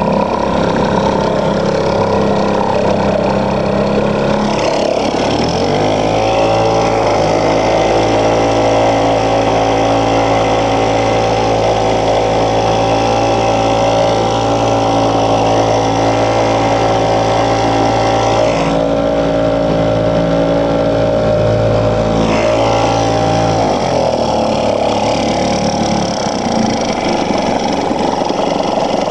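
Sears 3.5 hp two-stroke outboard motor running on a canoe. It revs up about five seconds in, holds a steady higher speed for most of the time, then drops back near the end.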